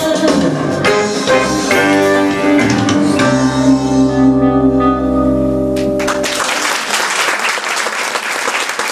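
A woman sings live over backing music, and the song ends on a long held chord about six seconds in. An audience then applauds for the last few seconds.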